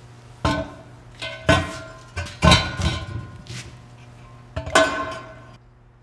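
Heavy steel skyhook pedestal base clanking against the concrete floor as it is set down and stood upright. There are four or five sharp metal knocks, the loudest about two and a half seconds in, each leaving the steel ringing briefly.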